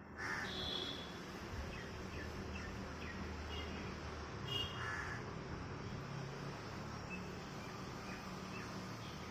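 Shikra calling from a perch: two short, sharp calls, one just after the start and another about halfway through. Faint chirps of small birds and a steady low background hum run underneath.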